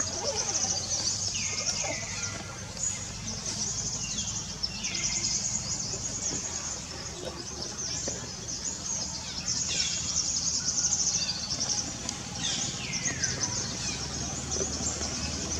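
A high, pulsing insect chorus comes and goes in long stretches, with a short call sliding down in pitch every two or three seconds.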